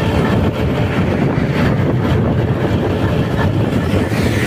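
Steady rumble of riding on a motorcycle along a paved road: engine and road noise with wind buffeting the microphone.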